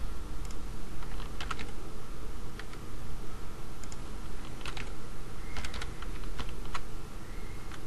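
Keystrokes on a computer keyboard: irregular, separate clicks as a name is typed in, over a steady low hum.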